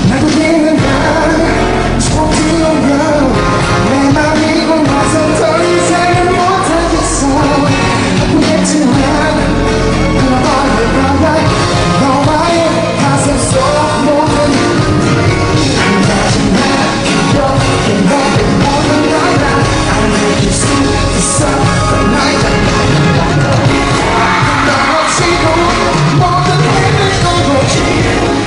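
A live pop song played loud over a concert sound system, with a man singing into a handheld microphone.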